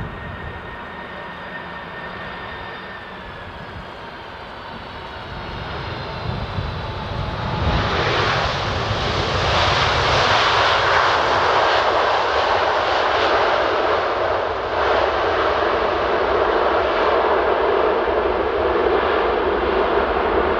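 Large jet airliner's engines: a high whine that slides slightly down in pitch, then a loud roar that swells up about eight seconds in and holds.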